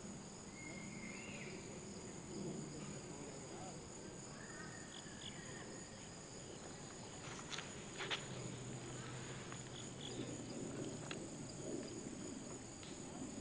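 Outdoor chorus of insects, a steady high-pitched trill, with a couple of short chirps and two sharp clicks about halfway through.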